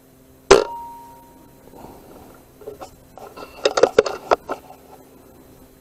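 A single shot from a silenced Brocock BRK Ghost PCP bullpup air rifle about half a second in: a sharp crack with a short ringing tone after it. Around three and a half to four and a half seconds in comes a flurry of clicks and rustles.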